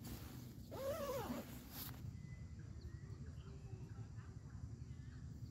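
A dog whines once, a short call that rises and then falls in pitch, over a faint low steady hum.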